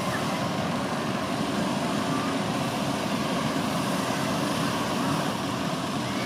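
Steady, unbroken roar of hot-air balloon inflation equipment as the envelope is heated and stood up.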